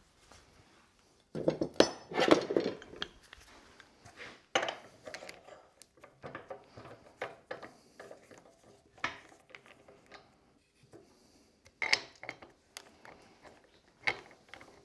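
Irregular metal clinks and knocks as a steel scroll chuck holding a wooden workpiece and a chuck holder are handled and clamped on a stopped wood lathe, with a denser run of knocks and rattling a couple of seconds in.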